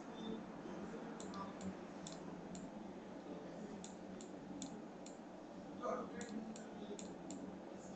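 Computer mouse clicking: about a dozen short, sharp clicks at irregular intervals, over a steady low hiss.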